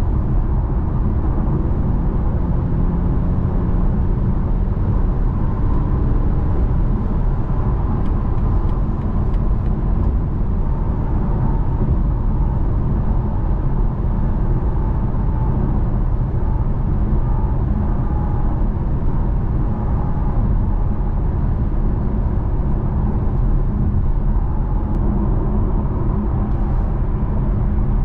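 BMW X4 M40i's B58 turbocharged straight-six driving at a steady cruise: a continuous low road and tyre rumble with the engine's hum under it, holding even with no rise or fall in revs.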